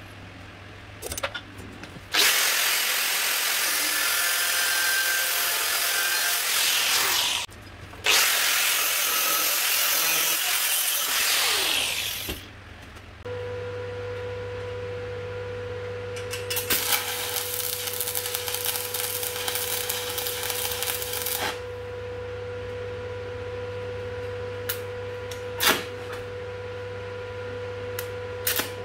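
An angle grinder cutting steel angle in two long runs, the motor spinning down after the second. Then, over a steady electrical hum and whine, a welder crackles through a weld bead for about five seconds, followed by a few short tack-weld crackles.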